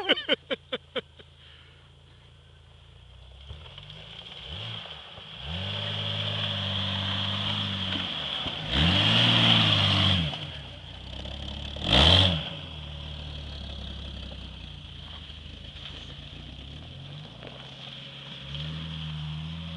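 Jeep Cherokee XJ engine revving in repeated surges as it climbs a steep dirt mound, the pitch rising and falling. It is loudest about nine to ten seconds in, with another short sharp rev about two seconds later.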